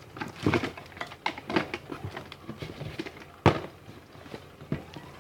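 Irregular clicks and knocks of containers and bottles being handled while slime ingredients are added, with one sharper knock about three and a half seconds in.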